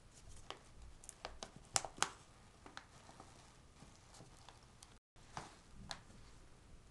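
A cat scuffling in paper wrapping beside a cardboard box: scattered rustles and sharp clicks, the two loudest about two seconds in.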